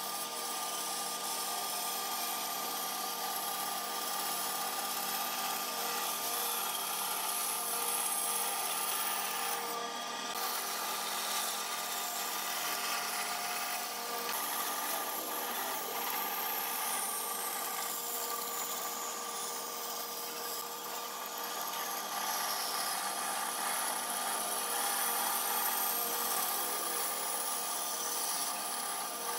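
Band saw running steadily, its blade cutting curves through a thick block of wood.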